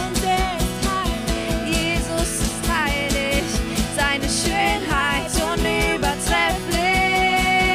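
Worship band playing an instrumental passage with a steady drum beat and a sliding, bending lead melody line.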